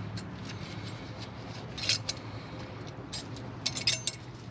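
Light metallic clinks and clicks of thin steel brake-pad hardware clips being handled and fitted onto the disc brake caliper bracket. The loudest clink comes about two seconds in, and a quick cluster of clicks comes near the end.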